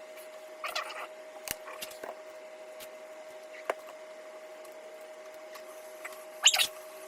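3D printer humming with a steady tone, with a few scattered clicks and a louder short clatter about six and a half seconds in.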